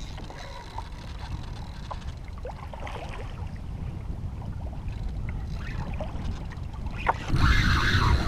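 Wind and sea water washing around a kayak, with a few faint clicks. About seven seconds in it turns louder, with wind buffeting the microphone and water rushing past the hull.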